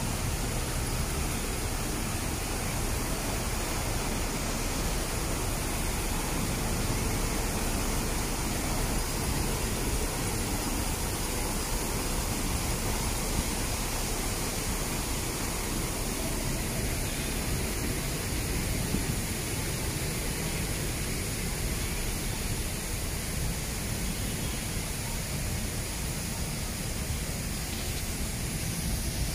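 Public park fountain: water jets and a cascade spilling into the basin, a steady rush and splash of water.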